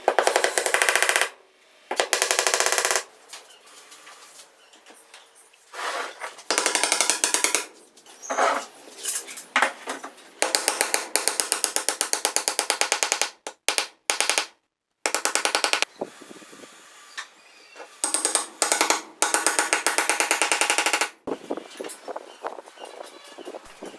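A power tool working wood in several bursts of one to three seconds, each a fast, even chatter of strokes, with short pauses between.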